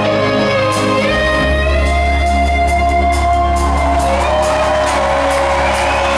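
Live rock band playing, with electric guitar, keyboards, bass and drums, with held notes that slide in pitch and a bass line that changes about a second in.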